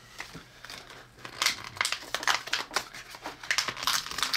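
Plastic blister pack on a cardboard backing being worked open by hand, with a quick run of sharp crackles and clicks starting about a second and a half in.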